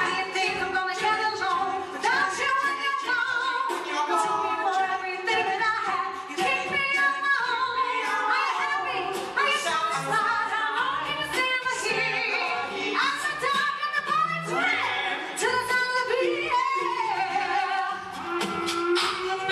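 A cappella vocal band singing a song with no instruments: a woman's voice leads over close male backing harmonies, kept in time by a steady beat of mouth-made percussion clicks.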